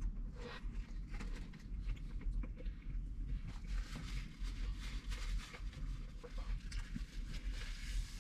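A person chewing a mouthful of burger, with many small irregular wet clicks and smacks over a steady low hum.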